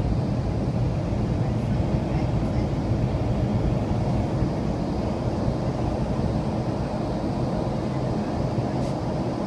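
Steady low drone of an airplane's engines and airflow heard inside the passenger cabin during the climb after takeoff.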